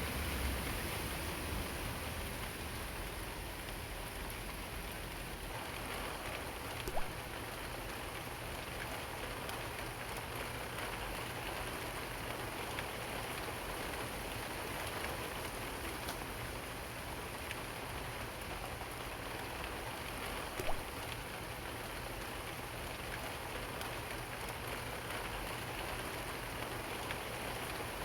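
Steady rain falling on forest leaves, a dense even patter, with two single louder drops striking close by, about seven seconds in and again about twenty-one seconds in.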